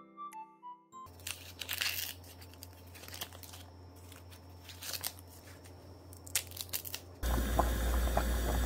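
Green corn husks rustling and tearing as the outer leaves are stripped from fresh ears of corn, a string of sharp crinkles. About seven seconds in this gives way to the louder, steady bubbling of water at a rolling boil around husk-wrapped corn.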